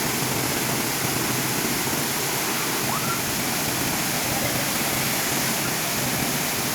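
Mimbalot Falls' water pouring down, a steady, even rush of falling water.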